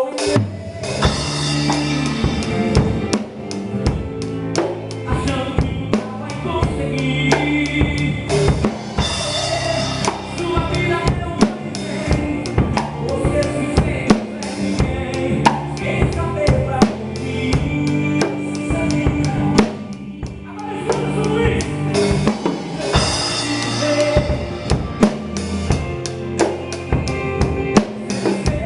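Instrumental section of a gospel forró song: a full band with a drum kit keeping a steady beat, kick drum and snare prominent, over bass and melody instruments. The band drops out briefly about two-thirds of the way through.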